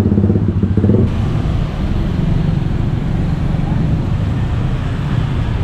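Street traffic. A vehicle engine runs close by for about the first second, then a steady low rumble of passing traffic follows.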